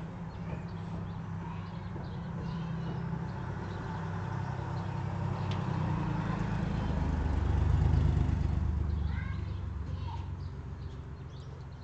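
Motor vehicle passing on the street below: a low engine rumble that builds slowly, peaks about eight seconds in, then fades away.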